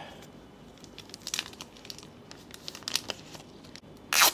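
Plastic protective film on a new smartphone's back crinkling as it is peeled off, in a few short crackling bursts, with the loudest, brief rip near the end.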